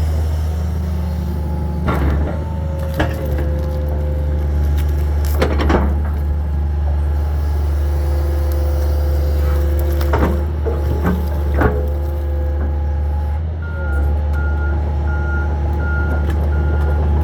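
Hitachi 225 22.5-ton excavator working: its diesel engine drones steadily with a hydraulic whine that shifts in pitch, and sharp knocks and cracks come several times as it handles wood and debris. In the last few seconds its travel alarm beeps about twice a second.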